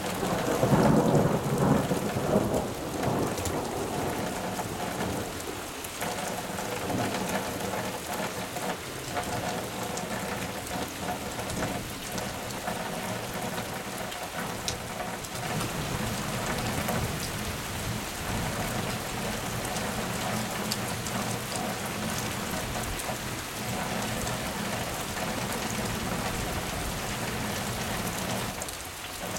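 Steady rain falling and pattering on the ground, with a low rumble of thunder, loudest about one to three seconds in.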